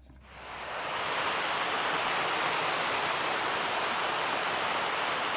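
Water rushing over a dam: a steady hiss that swells up over about the first second and then holds even.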